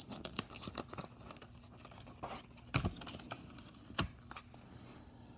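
Clear plastic sleeve rustling and crinkling as a paper booklet is slid out of it by hand, with many small ticks and scratches. Two sharper taps stand out, about three seconds in and again a second later.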